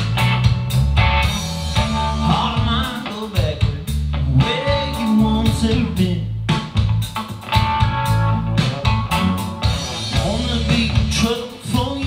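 A blues-rock song played back through a Bang & Olufsen Beovision Harmony TV's sound system: a male voice sings over electric guitar, bass and drums.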